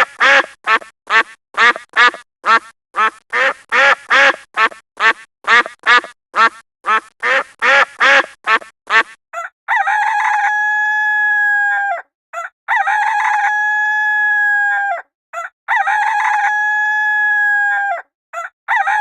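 Chicken calls: a rapid run of short clucks, about two a second, then from about halfway a rooster crowing three times, each crow a long note held at a steady pitch for about two seconds.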